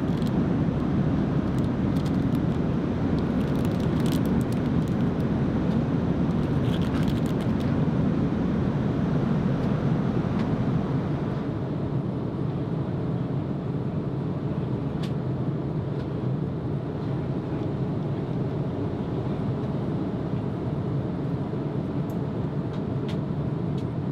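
Steady airliner cabin noise of an Airbus A330-900neo in cruise, a dense low rush. During the first several seconds, light crinkles of plastic snack wrappers being handled sit on top; about halfway through, the noise drops a little and runs on steadily.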